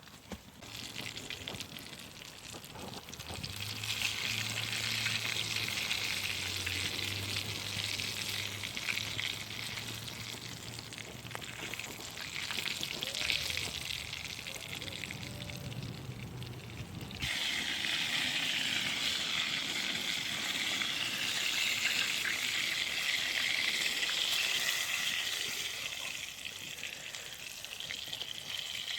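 Food sizzling as it cooks over the fire, a steady hiss that gets louder and denser about two-thirds of the way through. For the first half a low hum of passing traffic runs underneath.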